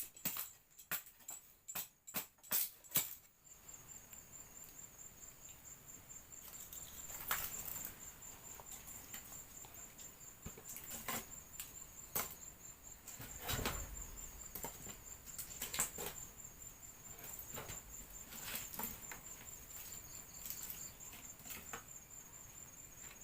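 A run of sharp knocks for about three seconds, then a steady, evenly pulsing high insect trill with scattered light clicks and taps.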